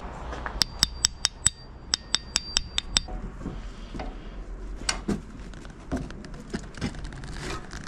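Metal clicking in two quick runs of sharp clicks, about five a second, each run carrying a high ringing note, followed by scattered softer knocks and handling sounds of tools and parts at a workbench.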